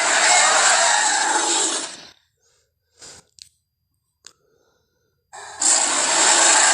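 Carnotaurus creature roar sound effect: a long, harsh roar that breaks off about two seconds in, three short quiet sounds, then a second harsh roar beginning about five and a half seconds in.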